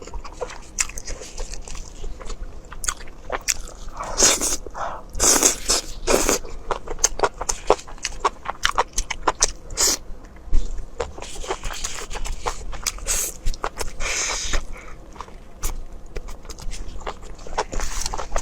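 Close-up eating sounds of rice and noodles being chewed: many small wet clicks and crunches from biting and chewing, with a few louder noisy bursts about four to six seconds in and again near fourteen seconds.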